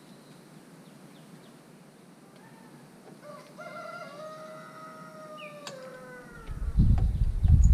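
A rooster crowing once, one long call of about three seconds that drops slightly at the end. Near the end a loud, uneven low rumble starts and becomes the loudest sound.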